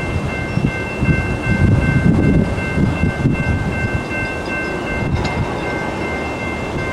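A locomotive air horn, the Nathan K5L on the lead CSX ET44AH, sounds one long, steady chord over the low rumble of the approaching train.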